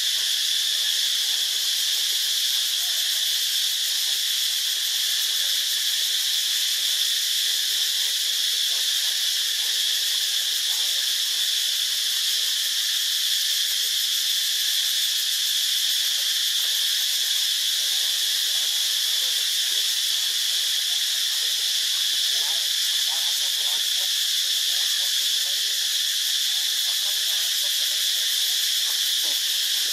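Steady high-pitched insect chorus: an even, unbroken hiss with one strong ringing band.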